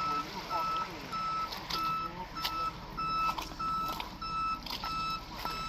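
Tow truck's reversing alarm beeping steadily, about one and a half beeps a second, with the truck's engine running underneath.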